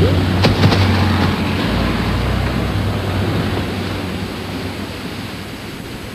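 A car running as it drives by, over the rush of surf and wind, the sound fading steadily away.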